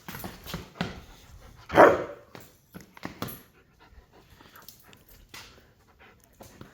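Dog panting during play, with one loud bark about two seconds in.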